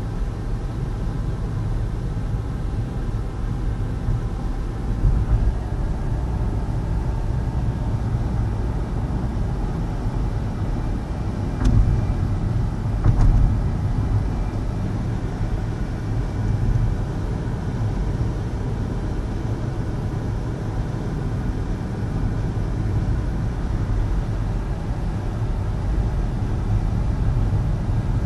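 Road and tyre noise of a 2012 Nissan Versa hatchback cruising at 45–50 mph, heard in the cabin: a steady low rumble. Two short knocks come about twelve and thirteen seconds in.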